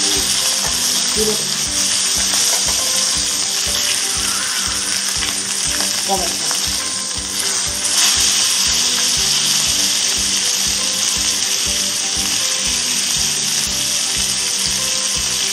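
Duck breast sizzling steadily as it sears in a frying pan.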